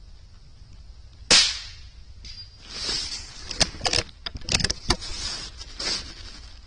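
A single shot from a CZ457 .22 LR bolt-action rifle, one sharp crack about a second in. It is followed over the next few seconds by a run of clicks and clacks as the bolt is worked to eject the spent case and chamber the next round.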